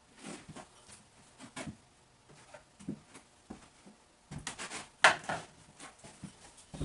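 Door-closer hardware and screws being handled: a scattering of small clicks and knocks, with a quick run of clatter about four seconds in and the sharpest click around five seconds.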